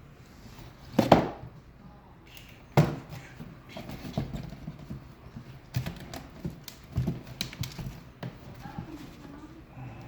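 Knocks and clicks of display parts and fasteners being handled and fitted while a shelf is fastened to the unit: a loud knock about a second in, another near three seconds, then a run of smaller taps and clicks.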